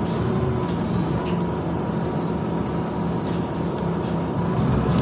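Scania CityWide LF 18 articulated bus's natural-gas engine running low and steady, heard from inside the cabin, with a thin steady whine over it. Near the end the engine note starts to build as the bus pulls away.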